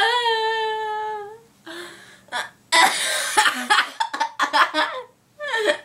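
A female voice in a laughing fit over hiccups: a long high-pitched squeal held about a second and a half, then a stretch of broken, breathy laughter, and a short sharp vocal catch near the end.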